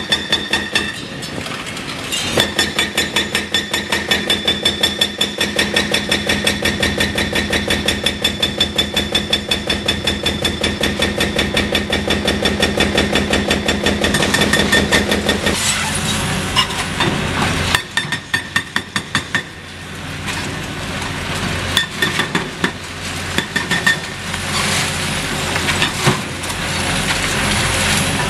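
Hydraulic breaker on a Caterpillar excavator hammering the concrete bridge deck in a rapid, steady rattle over the running diesel engine, stopping about halfway through. After that come irregular knocks and clatter of broken concrete while the excavator engines keep running.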